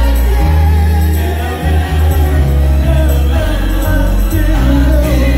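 Soulful house track with a heavy bass line playing loud over a club sound system, with a man singing live into a handheld microphone over it.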